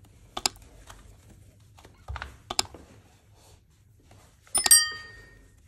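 Subscribe-animation sound effects: a few computer mouse clicks, then a bright bell-like notification ding about three-quarters of the way through. The ding is the loudest sound and rings on for about a second.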